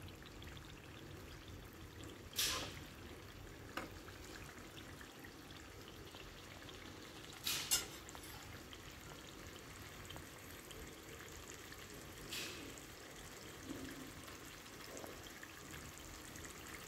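Chicken curry sizzling faintly and steadily in a nonstick pan. A few brief sharp knocks break in, the loudest a quick double about seven and a half seconds in.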